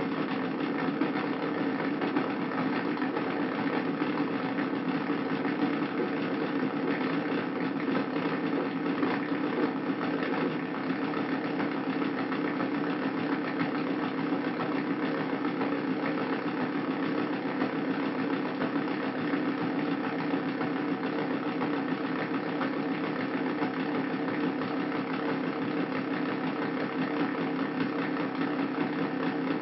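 Hand-made Arduino drone synthesizer playing a steady, buzzing drone of many held tones, with no change in pitch or level.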